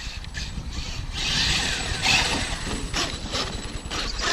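Traxxas X-Maxx RC monster truck driving on oversized tyres, a rumbling, clattering run with surges of louder noise; it sounds like a tank.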